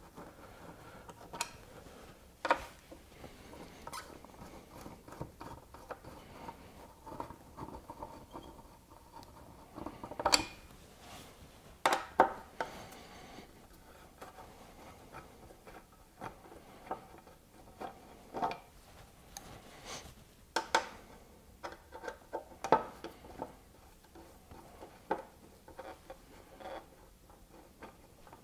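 A 4 mm Allen key turning out the windscreen bolts on a Yamaha Ténéré 700: small scattered clicks, light metal-and-plastic knocks and scraping as the key seats and the bolts come loose, with louder knocks about ten and twelve seconds in and again around twenty to twenty-three seconds in.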